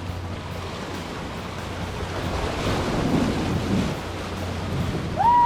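Surf washing against jetty rocks, with wind buffeting the microphone. Near the end a single short pitched call rises and falls.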